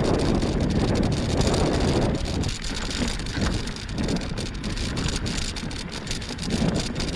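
Wind buffeting the microphone over the steady rumble and rattle of a bike's tyres on a dirt trail while riding.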